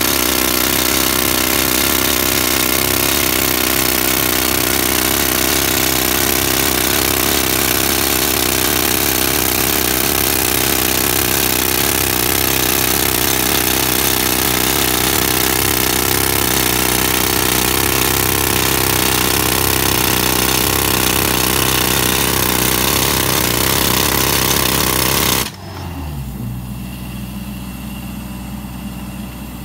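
Atlas Copco RH658 handheld pneumatic rock drill hammering a 35 mm bit into rock, a loud continuous rattle over the drone of the Atlas Copco XAS 68 diesel compressor. About 25 seconds in, the drill stops suddenly, leaving the compressor running as its engine note drops.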